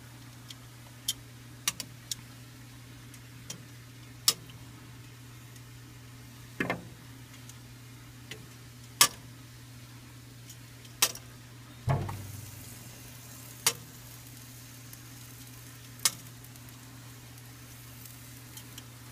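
Sharp, irregular clicks and taps on a charcoal kettle grill's metal cooking grate as chicken wings are laid out on it, about ten in all, over a steady low hum.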